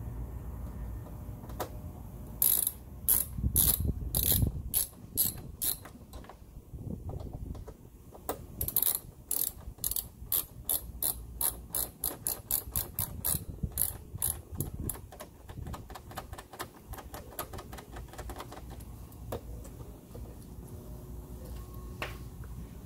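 Small hand ratchet clicking as it drives screws back into a motorcycle's side fairing panel. The clicks come in short runs from a couple of seconds in, run fast and even through the middle, then thin out to a few strokes near the end.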